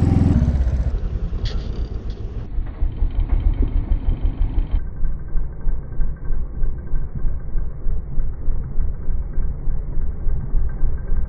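Bajaj Pulsar RS 200's single-cylinder engine running at low speed while the bike rolls along a rough dirt track. It makes a low rumble that pulses steadily.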